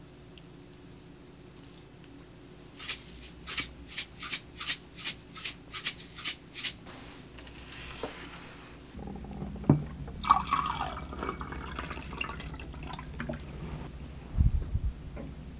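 A run of about a dozen quick, even grinding strokes, about three a second, as sesame seeds are ground over the stir-fried pork. After that come a sharp knock and a short clatter of tableware being set down, and a low thump near the end.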